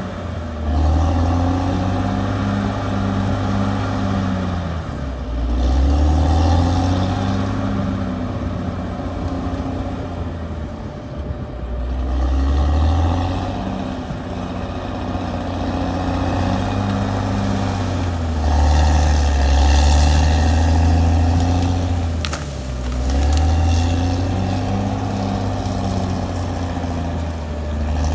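Caterpillar D6R XL bulldozer's diesel engine running under load, its pitch and loudness swelling and easing about every five to six seconds as it works.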